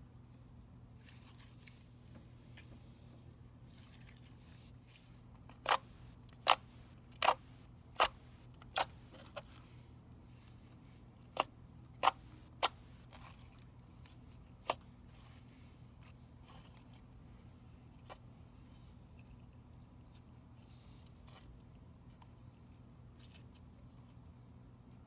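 Slime being squeezed and folded by hand, giving about ten sharp pops of trapped air, bunched together in the middle stretch, over a low steady hum.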